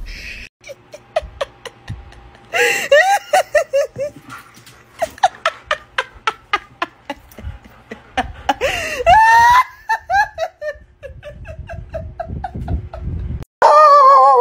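A person laughing in repeated short bursts. Near the end a dog gives a loud, wavering bark.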